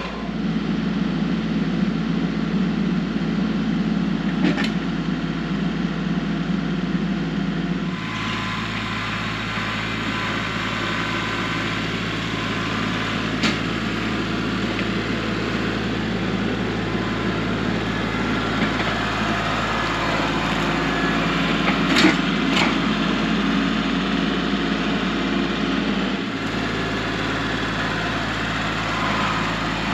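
Kubota L3301 tractor's three-cylinder diesel engine running steadily, with a few sharp clanks.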